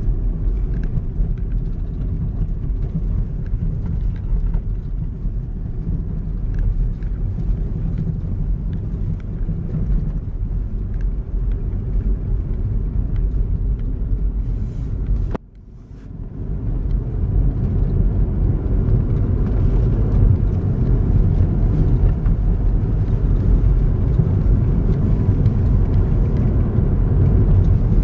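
A pickup truck heard from inside the cab while driving on a snowy road: a steady low rumble of engine and tyre noise. About halfway through, the sound drops out suddenly for a moment, then swells back.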